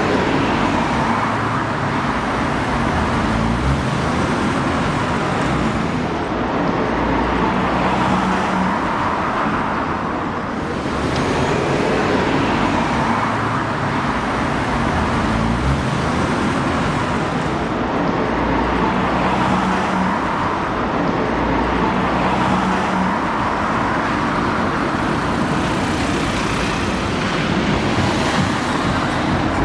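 Steady city road traffic, with cars passing one after another so the noise swells and eases every few seconds.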